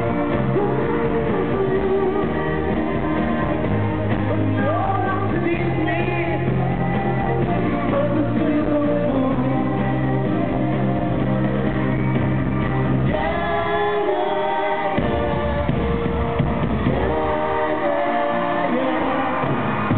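Live pop song played loud over an arena sound system: a full band with steady bass and a male voice singing. The bass drops out briefly about two thirds of the way through, then returns.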